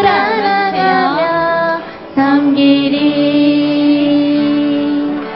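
Children and a woman singing a Korean worship song to musical accompaniment. After a brief break, the line ends on one long held note.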